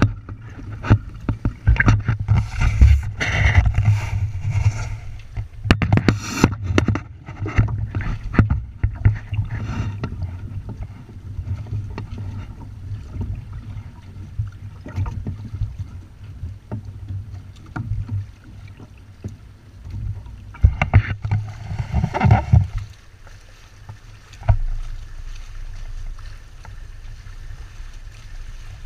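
Water splashing and rushing against the hulls of a Windrider 17 sailboat under way, over a steady low rumble of wind buffeting the microphone. The splashes come in busy clusters near the start and again about two thirds of the way through.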